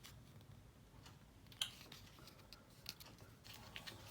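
Faint clicks and light handling noise of old coins being picked up and shown, with a sharper click about one and a half seconds in and another near three seconds.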